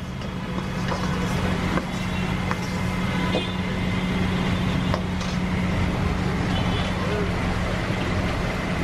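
Steady mechanical hum over street traffic noise, with a few sharp clicks scattered through it.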